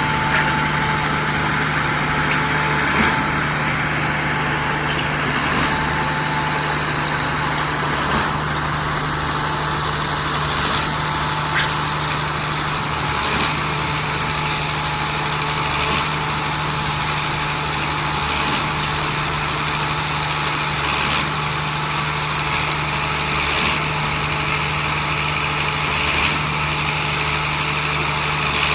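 Concrete mixer pump running steadily with an engine drone, with a faint knock about every two and a half seconds.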